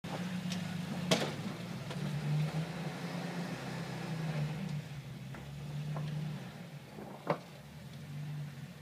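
Jeep Wrangler YJ's engine running at low revs while rock crawling, its pitch rising and falling as the throttle is worked. Two sharp knocks stand out, about a second in and again about seven seconds in.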